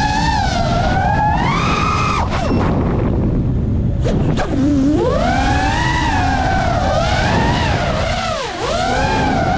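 FPV quadcopter's brushless motors whining, their pitch rising and falling with the throttle over a low rush of prop wash and wind. About two seconds in the whine falls away, returning and climbing again about two seconds later as the quad rolls through a flip, with another short dip near the end.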